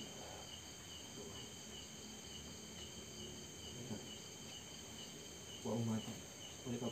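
Night insects chirping in a steady high drone with a faint pulse a few times a second. A low voice murmurs twice, briefly, near the end.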